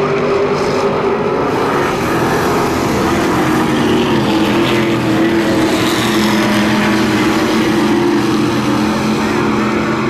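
Several Amcar speedway sedans' V8 engines running hard together as the pack races around a dirt oval, a steady overlapping engine drone.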